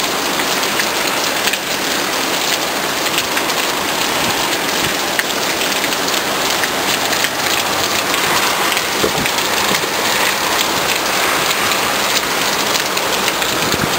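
Heavy downpour of rain, a steady dense hiss with many close, fine drop ticks.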